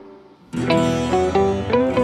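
Background music: a plucked-string melody that drops away almost to nothing, then starts a new run of quick notes about half a second in.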